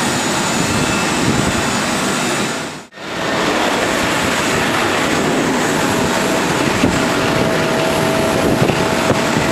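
Steady loud jet noise from a British Airways Boeing 777-200ER with GE90 engines. The sound drops out briefly about three seconds in, then resumes with a faint steady whine.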